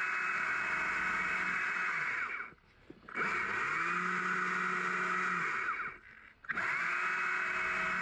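Small Stihl chainsaw running in three bursts, carving swooping branch lines into a small green-wood tree blank. The saw stops briefly about two and a half seconds in and again at about six seconds, its pitch falling as it stops each time.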